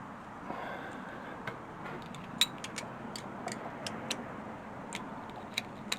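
Irregular sharp metallic clicks and taps from hand tools working on the timing-chain side of a 3.6 litre V6 engine, the loudest about two and a half seconds in, over a steady background hiss.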